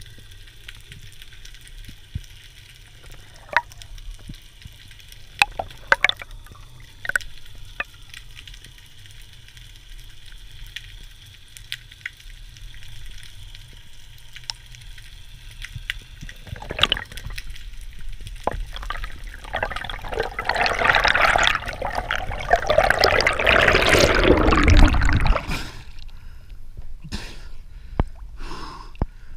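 Underwater ambience: a low steady rumble with scattered sharp clicks. About two-thirds of the way through comes a loud rush of moving water as the spearfisher swims up. It gives way near the end to the lighter sound of water splashing at the surface.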